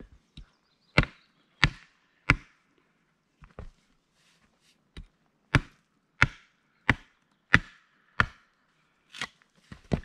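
Hatchet chopping dry deadwood branches: sharp woody chops, three in quick succession, a pause with a few light taps, then a steady run of strikes about one every two-thirds of a second.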